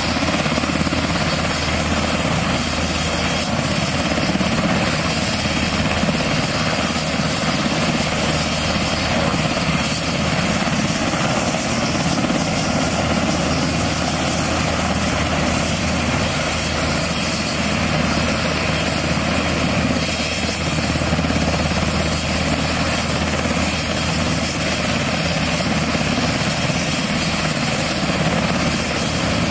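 UH-60 Black Hawk helicopter running close by: a loud, steady mix of rotor noise and turbine engine sound from its twin turboshaft engines and main rotor.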